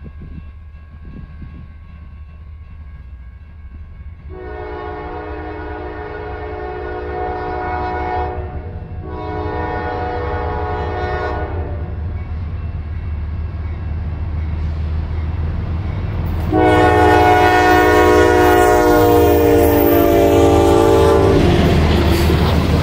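CSX diesel freight locomotives approaching with a rising engine rumble and sounding three long blasts of a multi-note air horn, the third the loudest and nearest. Near the end the locomotives pass close by in a loud rush of engine and steel-wheel noise, and the freight cars begin rolling past.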